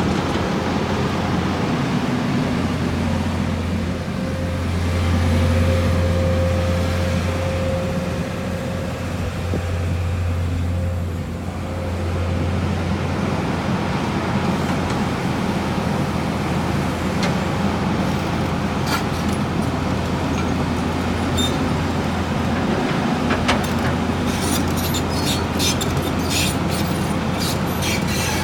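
JCB JS305LC tracked excavator's diesel engine running, picking up twice in the first half with a thin whine over it. A run of sharp clicks comes near the end.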